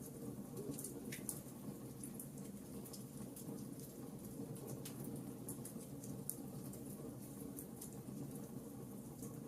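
Wood campfire crackling: sharp, irregular snaps and pops over a steady low rush.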